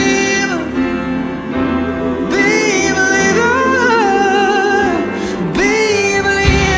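Background song: a singer holding long, wavering notes over instrumental accompaniment.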